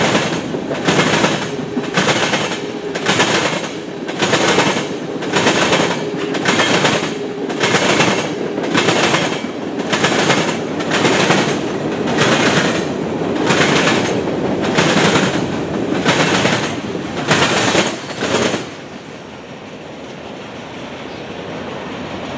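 Freight train's covered hopper and tank cars rolling past, their wheels clacking over the track in a steady rhythm about once a second. The clacking stops about 18 seconds in as the last car passes, leaving a softer steady rumble.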